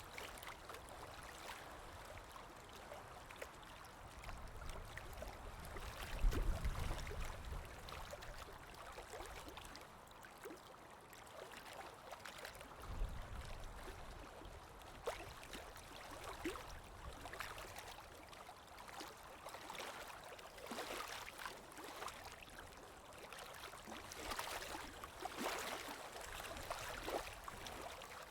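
Water trickling and gurgling steadily, with many small splashes and drips. A low rumble comes in about six seconds in and again around thirteen seconds.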